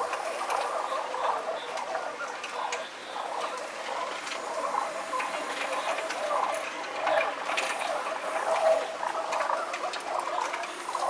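Rock pigeons pecking grain off a concrete ledge: many quick, irregular ticks over a busy murmur, sped up to double speed.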